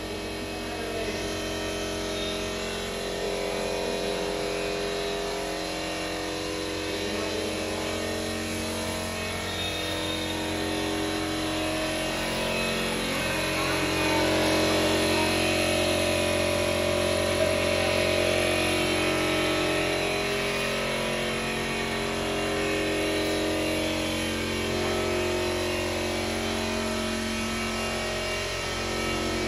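Steady machinery hum, with indistinct voices in the background.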